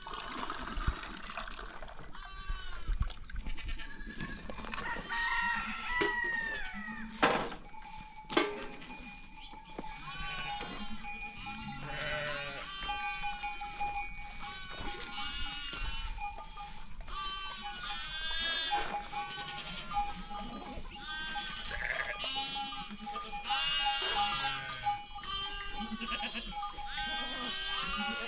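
Many goats and sheep bleating over one another, calls overlapping without a break, with two sharp knocks about seven and eight seconds in and a steady ringing tone that comes and goes from then on.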